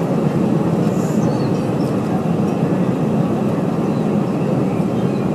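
Steady engine and rolling rumble heard inside the cabin of a Boeing 717 with rear-mounted Rolls-Royce BR715 turbofans.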